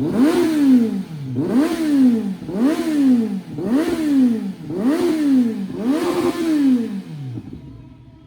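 2025 Kawasaki Z900's inline-four engine blipped through an Arrow aftermarket exhaust, about seven sharp throttle blips one a second, each rising quickly in pitch and falling back toward idle. The revving stops shortly before the end.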